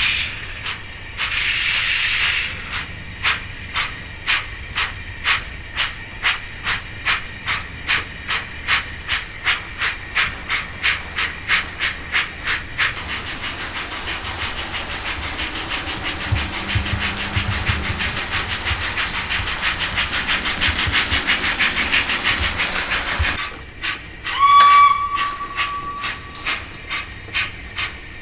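Steam locomotive sounds. A whistle blast comes about two seconds in. Exhaust chuffs follow at about two a second, quickening until they merge into a steady rush of steam. A brief whistle sounds near the end, and slower chuffs resume after it.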